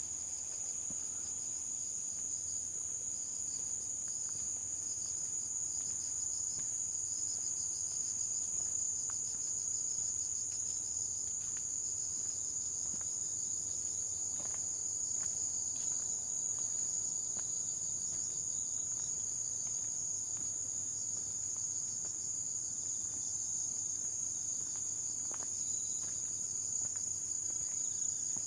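A steady, high-pitched chorus of insects shrilling without a break, with faint scattered footsteps on the path.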